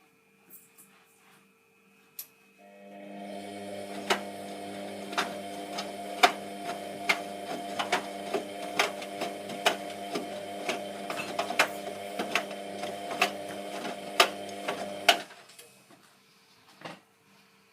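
Hotpoint Aquarius WMF720P washing machine's motor starting about two seconds in and running for about thirteen seconds with a steady hum and irregular clicks, then stopping.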